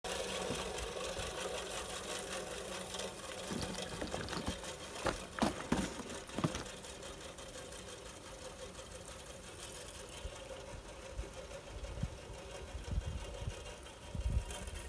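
Homemade radio-controlled reel mower running across a lawn: a steady, rattling mechanical whir that fades as it drives away. A few sharp clicks come about five to six and a half seconds in, and a few low thumps near the end.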